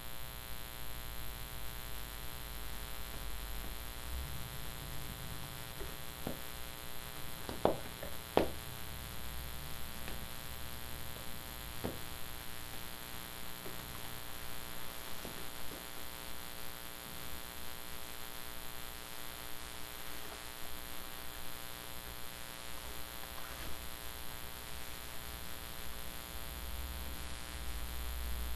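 Steady electrical hum with a buzzing stack of overtones. A few sharp clicks cut through it, the two loudest about eight seconds in.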